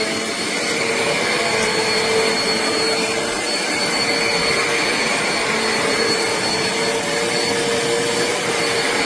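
Eureka Airspeed bagless upright vacuum cleaner running steadily, its motor holding a constant whine with a rushing airflow as it is pushed around the floor.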